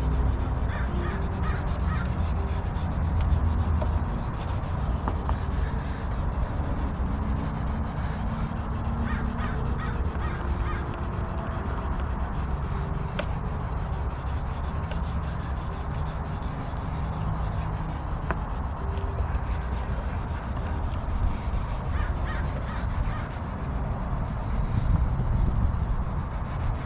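Wet sandpaper (3000 grit) on a foam disc holder, rubbed by hand back and forth over a plastic headlight lens in a steady scrubbing rhythm: the fine refining stage after 2000 grit. Birds call now and then in the background.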